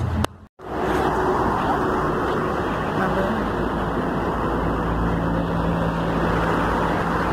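Steady traffic and road noise, with wind rushing on the microphone. A low, steady engine hum comes in during the second half. The sound cuts out briefly about half a second in.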